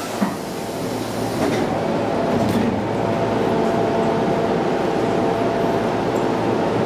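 Keio 7000 series commuter train standing at the platform with a steady hum from its equipment. Its sliding doors close within the first few seconds, with a short knock just after the start and a faint thud about two and a half seconds in.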